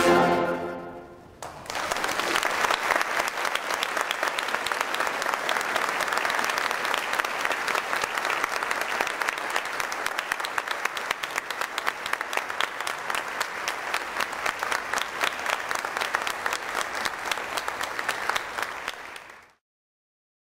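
A concert band's final chord dies away in the first second, then a concert audience applauds steadily for about eighteen seconds before the sound cuts off abruptly.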